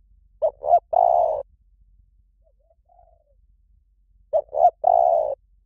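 A bird's low cooing call, two short notes followed by one longer note, given twice about four seconds apart. Fainter, shorter calls at a similar pitch come in between.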